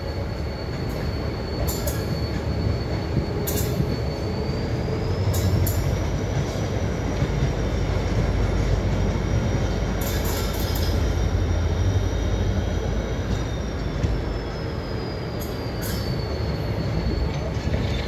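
Passenger train running behind an EMD WDP-4D diesel locomotive, heard from an open coach door: a steady low rumble of engine and wheels that grows heavier in the middle, with scattered sharp clicks. A high thin whine rises in pitch a few seconds in, holds, and falls back near the end.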